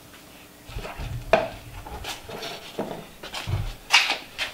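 Irregular sharp metallic clicks and clinks of lead jigs and metal tools being handled at a lead-pouring bench. The loudest comes about a second and a half in and another near the end, with a low rumble in the first half.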